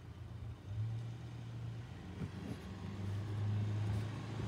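Engine of a USPS Grumman LLV mail truck running as it drives slowly closer: a steady low hum that grows louder toward the end.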